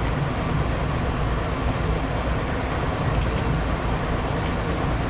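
Steady low rumbling background noise with no distinct events, only a few faint ticks.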